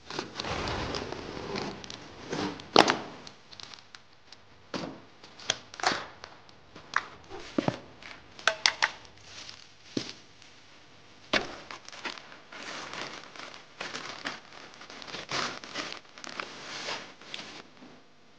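A large cardboard TV carton being unpacked: a box cutter slitting the packing tape, then irregular knocks of cardboard and the crinkle of plastic bags and foam packing being pulled out.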